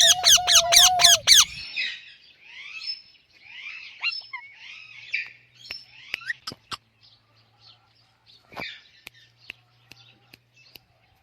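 Pet parrots calling: a loud run of about eight quick, sharp calls in the first second and a half, then softer chirping and scattered clicks.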